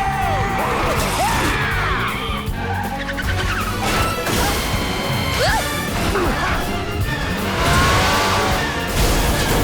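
Cartoon vehicle chase sound effects over a fast film score: tyres squealing in several swerving glides, with crashes and bangs.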